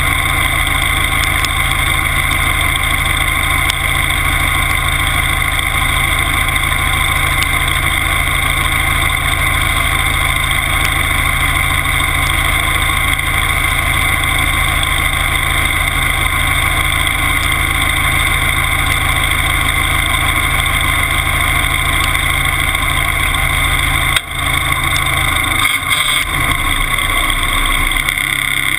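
Timberjack skidder's engine running steadily, heard up close from the hood beside the exhaust stack. About four seconds before the end the sound dips briefly and the engine note shifts as the skidder begins to move.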